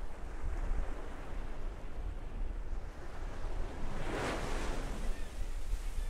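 Ocean surf: waves washing in over a steady low rumble, with one wave breaking louder about four seconds in.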